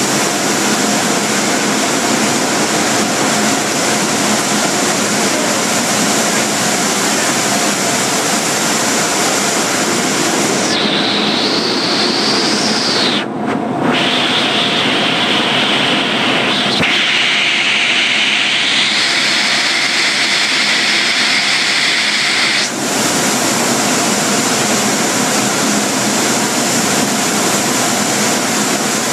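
Car wash air blowers running with a loud, steady rush. From about 11 seconds in, a higher whine joins in and breaks off briefly near 13 seconds. It stops abruptly near 23 seconds.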